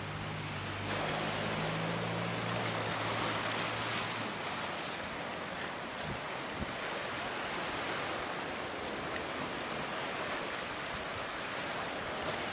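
Steady rushing of wind and ocean surf, growing louder about a second in. A faint low hum sits under it for the first few seconds.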